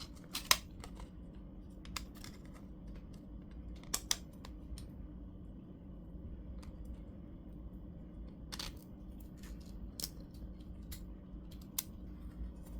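Scattered light clicks and knocks of 3D-printed PLA plastic parts being handled and pressed together in a dry fit, over a faint steady hum.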